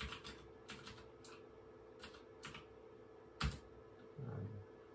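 Computer keyboard keys clicking as a short command is typed: about eight separate keystrokes, with one louder key strike about three and a half seconds in. A faint steady hum lies underneath.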